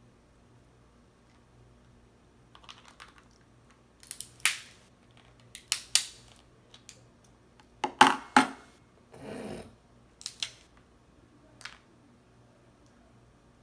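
Cooked crab leg shells being cracked and snapped apart by hand and picked with a crab fork: a few sharp crackling snaps, the loudest about four and eight seconds in, with quieter clicks between and a short rustle just after the second loud snap.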